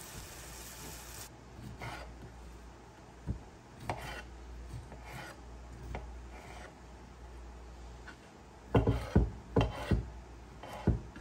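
A sandwich frying in butter in a cast-iron skillet sizzles for about the first second, then a kitchen knife cuts an orange into pieces on a wooden cutting board: soft slicing and scraping, with a run of sharp knocks of the blade on the board near the end.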